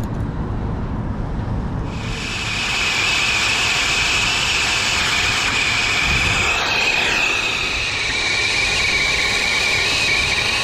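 Brazing torch flame hissing steadily, starting suddenly about two seconds in, as it heats a copper refrigerant line joint at a filter drier.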